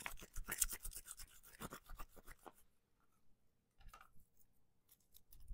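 A garlic clove being rolled back and forth inside a tube garlic peeler: a fast, scratchy rubbing of papery skin against the tube, stopping about two and a half seconds in. After that come a few faint clicks.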